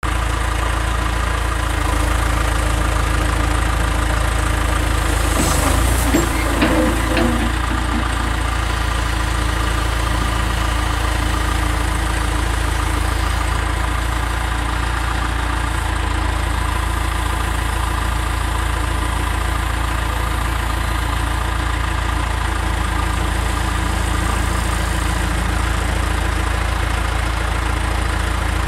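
Backhoe loader's engine running steadily, with a brief clatter about six seconds in.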